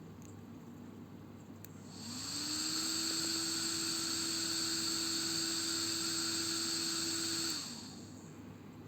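Small electric fan driven by an ESC (electronic speed controller) spinning up about two seconds in, running steadily with a hum and a high whine for about five seconds, then spinning down and fading out.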